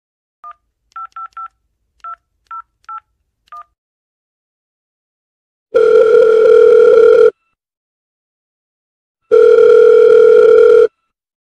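A telephone call being dialled and ringing out. Eight short two-tone keypad (DTMF) beeps come first, then two long buzzy ringback tones about two seconds apart.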